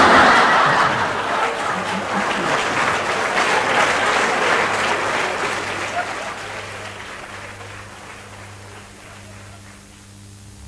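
Audience applauding, loudest at the start and dying away over about eight seconds, over a faint low hum.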